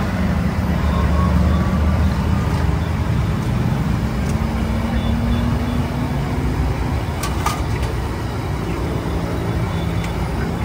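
Steady low motor rumble, with two light clicks about seven seconds in.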